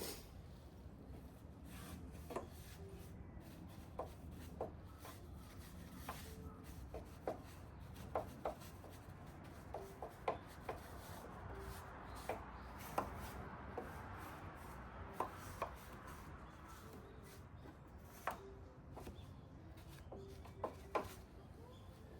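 Light, irregular knocks and taps on wooden boards with some rubbing, from hand work on a wooden air-conditioner unit cover.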